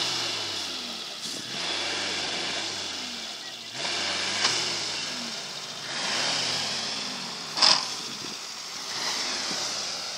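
Suzuki SJ 4x4's engine revving up and falling back several times as it drives through loose sand, with a sharp thump about three-quarters of the way through.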